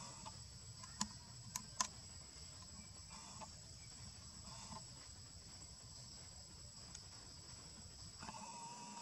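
Steady high-pitched drone of forest insects such as cicadas or crickets, with three sharp clicks about a second in.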